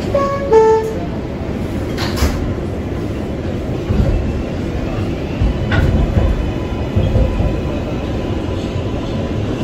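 Kawasaki R188 subway car running on the 7 line, heard from on board: a steady rumble of wheels on rail with scattered thumps and clacks. A brief run of short beeping tones sounds just after the start.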